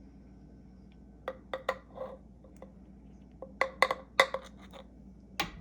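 Irregular sharp clinks and light knocks of glass and kitchen utensils, a dozen or so, starting about a second in: a glass jar of sliced lemon and ginger being handled while honey is added.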